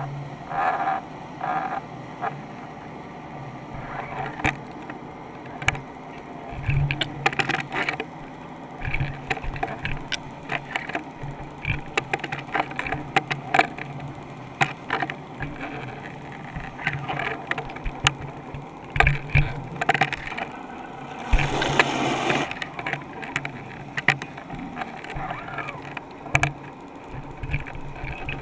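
Underwater knocking and clicking of a GoPro housing on a jig as the rig is jigged and drifts, irregular taps over a low steady hum. A louder burst of noise lasts about a second roughly three-quarters of the way through.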